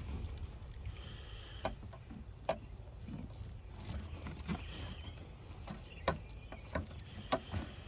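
Scattered small clicks and rubbing as rubber vacuum hoses are worked by hand back onto plastic fittings, over a low steady hum.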